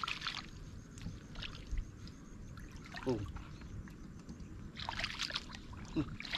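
Water sloshing and splashing in a canal with scattered small knocks, as of someone moving through the water, and a busier run of splashes about five seconds in. Two brief voice sounds come about three seconds and six seconds in.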